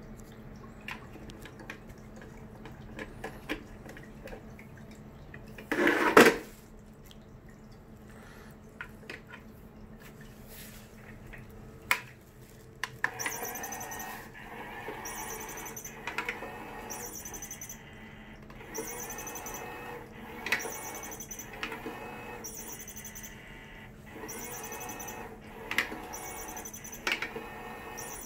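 Battery-powered cat toy's small motor whirring in a repeating on-off cycle, with clicks, starting about halfway through. Before it come light scattered taps and one brief loud noise about six seconds in.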